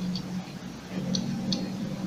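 Soldering iron tip working on stranded copper wire: three light ticks over a steady low hum.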